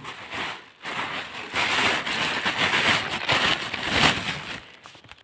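A clear plastic bag crinkling and rustling as it is handled and opened, uneven throughout and fading out near the end.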